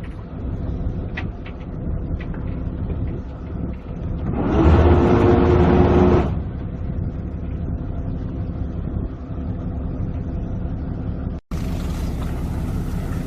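Fishing boat's engine running with a steady low hum, swelling louder for about two seconds a little after four seconds in, then settling back.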